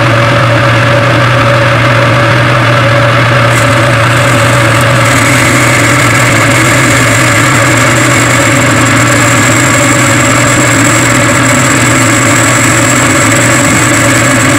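Metal lathe running, its four-jaw chuck spinning a pulley while a boring bar cuts the bore out toward 1 inch diameter: a loud, steady machine hum, with a thin high whine joining about five seconds in.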